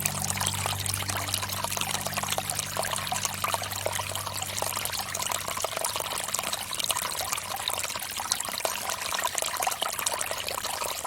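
Water from a bamboo fountain pouring and trickling in a steady, splashy stream. Low sustained music tones sound under it until about halfway through, then stop.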